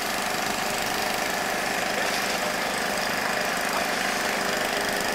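Excavator's diesel engine running steadily while its bucket lifts a load of mud and aircraft wreckage.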